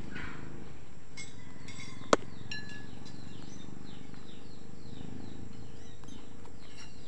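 Small birds chirping in short, repeated downward-sliding notes over a steady low background rumble, with a single sharp click about two seconds in.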